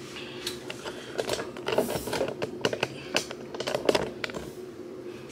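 Irregular small clicks and taps of a plastic false-lash pack being handled close to the microphone, busiest around two seconds in and again near four seconds.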